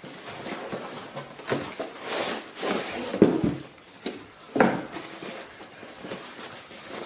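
Packaging being opened and handled, with rustling and two sharp knocks a little over a second apart near the middle.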